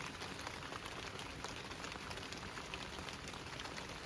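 Steady, quite heavy rain falling, with many small drop ticks pattering throughout.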